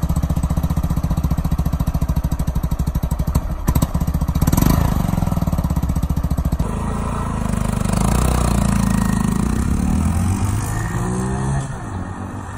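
Honda Monkey's single-cylinder engine idling through its stock exhaust, with a quick throttle blip about four and a half seconds in. After about six and a half seconds a motorcycle engine is heard riding on the road, its pitch rising and falling, and it drops away near the end.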